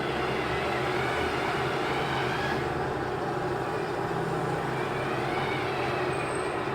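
Steady mechanical running noise with a low hum and faint tones held through it.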